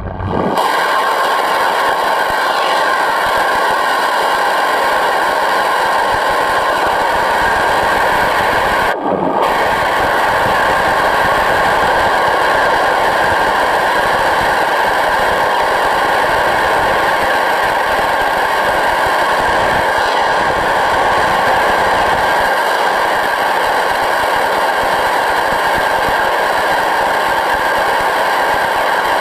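Pressure washer jet blasting through pool water, heard underwater: a loud, steady rush with a steady whine running through it. It breaks off briefly about nine seconds in.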